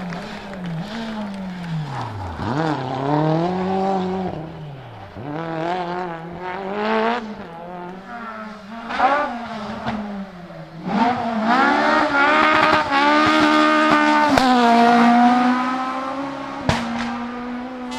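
Rally car engines revving hard at full attack, the pitch climbing and dropping again and again through gear changes and lifts, loudest about two-thirds of the way through. A single sharp bang comes near the end.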